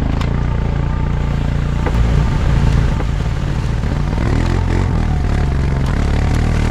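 ATV engine running steadily, swelling slightly louder about two seconds in.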